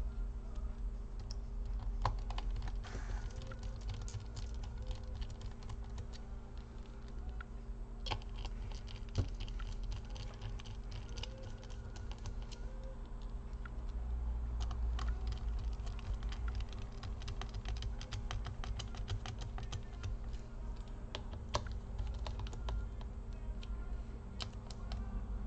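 Small screwdriver driving the screws back into a laptop's CPU/GPU heatsink: irregular faint clicks and ticks of the bit and the metal screws, over a steady low hum.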